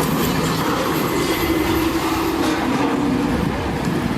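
Huge construction vehicle rolling with failed brakes: a loud, steady heavy rumble and clatter with a squealing tone that slowly drops in pitch.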